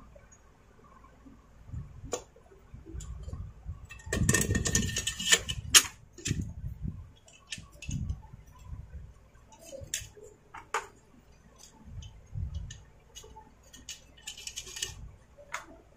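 Chainsaw chain being fitted by hand around the clutch drum sprocket: steel links and cutters clinking and clicking at irregular intervals, with a louder clatter about four seconds in.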